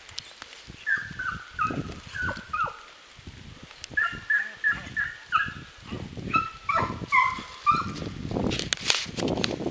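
Young Beagle Harrier hounds giving tongue while hunting in the woods: a rapid series of short, high yelping barks, each falling in pitch. Near the end come footsteps and rustling through leaf litter.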